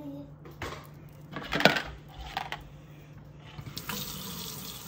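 A few sharp clinks and knocks of a red plastic bowl and spork being handled in a stainless steel sink. The loudest knock comes about a second and a half in.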